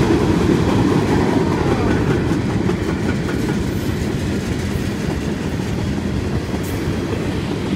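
Freight train cars rolling past at close range: a steady low rumble of steel wheels on the rails, with faint clacks over the rail joints.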